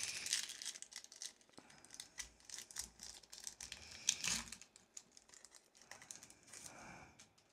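Foil wrapper of a Pokémon trading-card booster pack crinkling and crackling as it is handled and torn open, in irregular bursts with sharp ticks; the loudest burst comes about four seconds in.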